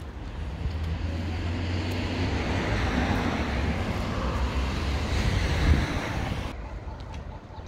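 Road traffic passing on the street: a vehicle's rushing tyre and engine noise swells and fades, with wind buffeting the microphone underneath, and cuts off suddenly about six and a half seconds in.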